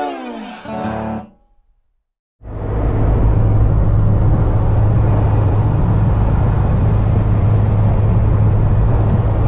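A short phrase of plucked-string music with sliding notes that stops after about a second. After a moment of silence, steady road and engine noise inside a moving car on a highway takes over and is the loudest sound.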